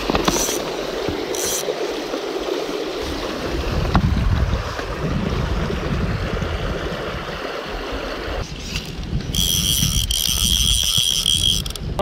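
Footsteps crunching and clicking over loose river cobbles, under a steady rumble of wind buffeting the microphone. For the last couple of seconds a steady high-pitched whine sounds over the rumble.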